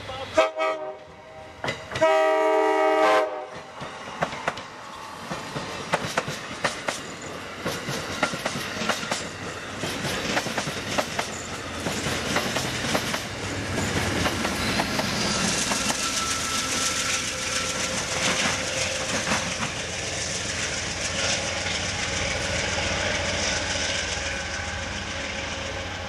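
Two horn blasts, a short one and then a louder one of about a second, sounded as an Amtrak passenger train approaches. The train then passes close by, its wheels clicking rapidly over the rail joints under a rising rush and hiss that carries on until the sound cuts off.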